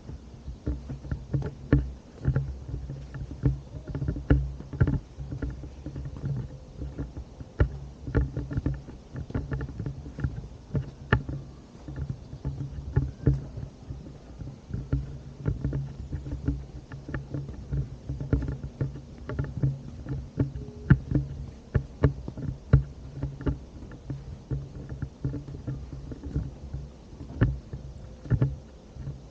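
Walking footsteps and handling knocks from a hand-carried camera, irregular, one to three a second, over a steady low hum.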